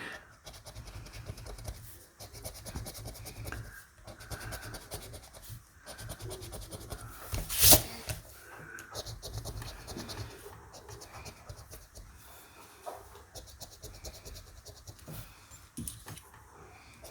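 Scratch-off lottery ticket being scratched, a faint continuous rasp of many quick small strokes across the latex coating. One sharp knock about eight seconds in is the loudest sound.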